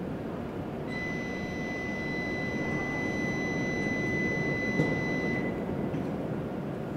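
A steady high electronic beep, the departure warning tone for a Shinkansen's doors closing, sounds for about four and a half seconds over a constant low rumble. A single knock comes near the end of the beep.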